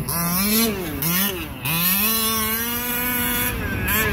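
Radio-controlled short-course truck driving, its motor whine rising and falling with quick bursts of throttle. It then climbs and holds a steady pitch for about a second and a half before dropping away near the end.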